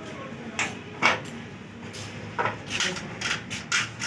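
Scattered knocks and clanks of hand work on a stripped car: two sharp knocks about a second in, then a quick run of them near the end.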